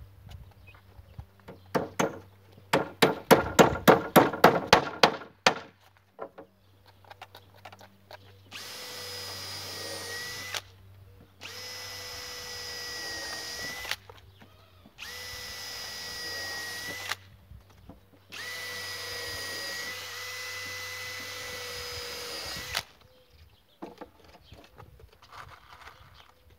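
Power drill working wood, run in four bursts of two to four seconds, its pitch sagging a little at the end of each. Before it comes a quick run of about a dozen sharp knocks, about four a second.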